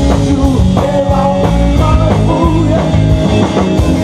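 Rock band playing live: electric guitar, bass guitar and drum kit, with the drums hitting a steady beat.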